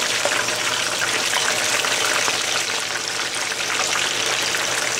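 Rolled Pacific whiting fillets frying in hot olive oil: a steady sizzle with dense, fine crackling.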